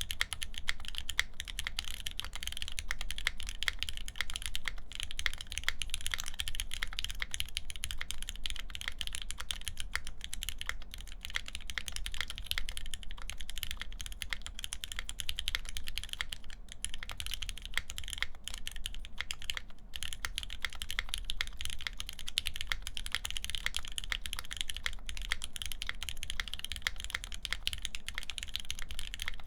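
Continuous, dense typing on a wilba.tech Thermal mechanical keyboard: lubed Gateron Ink linear switches in a full aluminum plate, under GMK keycaps.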